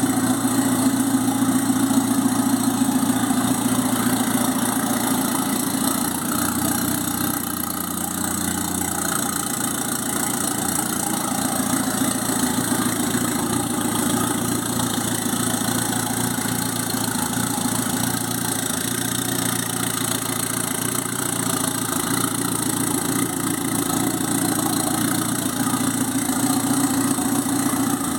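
Turbocharged Fiat 147 engine idling steadily, with no revving.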